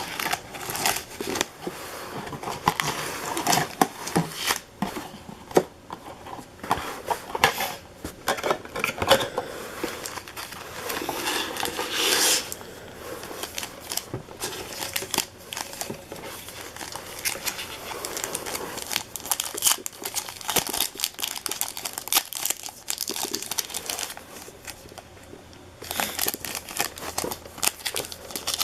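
Trading card pack wrappers crinkling and tearing as Panini Prizm football packs are opened, with cards rustling and clicking as they are handled. The crinkling is irregular, with louder stretches about twelve seconds in and again near the end.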